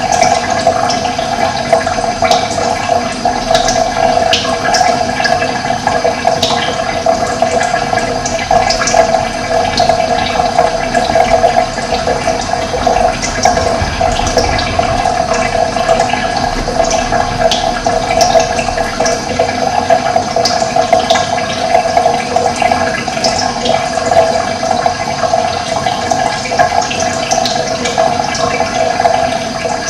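Running water flowing steadily, with short high bird chirps scattered throughout.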